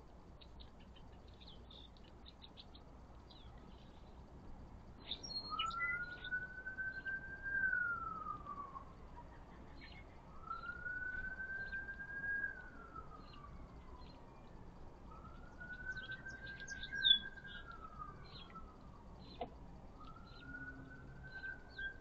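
A siren wailing, four slow cycles that each rise for about two seconds and then fall away, starting about five seconds in. Small birds chirp throughout, with one sharp, louder chirp about three-quarters of the way through.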